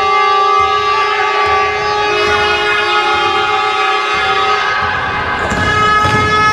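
Several held horn tones at different pitches, overlapping and shifting every second or two, over thuds of a basketball bouncing on the wooden court.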